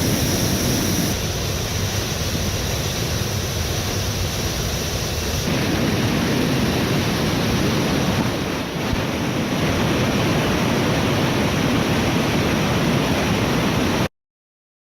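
Waterfall rushing steadily, a dense even roar of falling water, which cuts off abruptly near the end.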